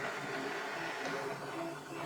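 Duplicator 4 3D printer running: its stepper motors sing in steady tones that shift in pitch as the head moves, with faint knocks from worn bearings.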